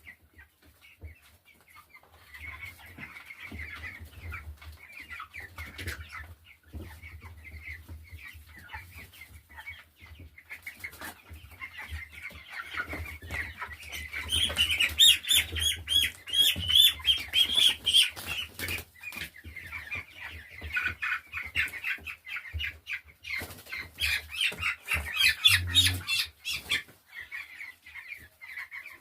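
A crowd of three-week-old chicks peeping many times over, with scuffling and wing flapping in the pen; the peeping grows loudest about halfway through and again near the end.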